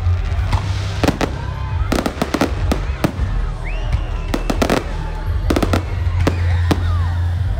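Fireworks display: aerial shells bursting in repeated clusters of sharp bangs and crackles.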